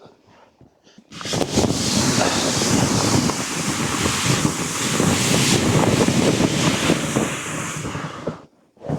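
A sled run down a snowy slope: wind rushing over the microphone and the sled hissing and scraping over the snow, starting abruptly about a second in and stopping suddenly near the end.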